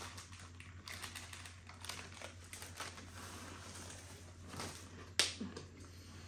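Crunching of a mouthful of crisps being chewed fast, with crisp packets crinkling, as a run of small crackly clicks. One sharper click about five seconds in.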